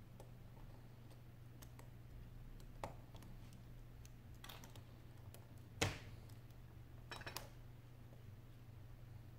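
Faint, scattered clicks and taps of metal tweezers and fingertips on the small parts inside an opened Sony Xperia Z2 smartphone, the loudest a little past halfway, over a steady low hum.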